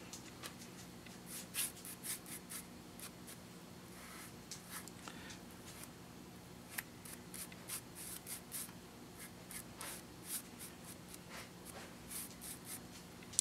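Paintbrush strokes on a painted wooden box: short, quick, scratchy swishes in irregular runs, with a faint steady low hum underneath.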